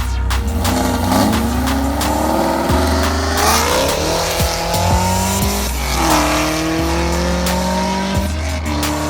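American V8 muscle car accelerating hard: the engine's pitch climbs steadily for several seconds, drops sharply at a gear change about six seconds in, then climbs again.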